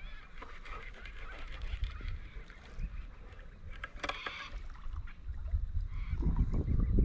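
Water splashing and knocks on a kayak as a hooked Murray cod is brought alongside, over a constant low rumble. Birds chirp in the first half, there is a short splash-like burst about four seconds in, and the splashing and handling grow heavier near the end.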